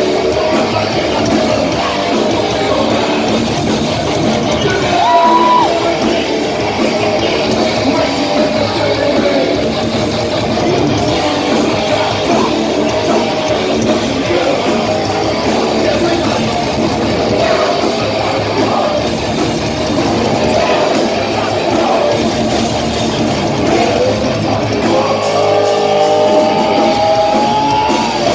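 Thrash metal band playing live and loud: distorted electric guitars, drum kit and vocals, heard from the crowd in a concert hall, with long held notes about five seconds in and again near the end.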